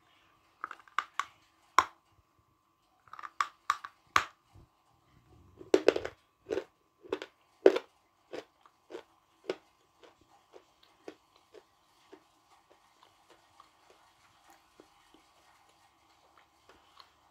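A piece of very hard blue Uzbek edible clay bitten off with effort and crunched between the teeth. The crunches are loud and close together for the first eight seconds or so, then thin out into fainter, sparser clicks as the clay softens into a paste; it crunches only briefly.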